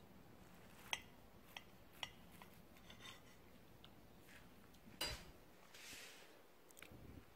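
Faint clinks and scrapes of a metal table knife against a ceramic plate while cutting a soufflé pancake: a few light ticks in the first two seconds and a louder clink about five seconds in, over near-silent room tone.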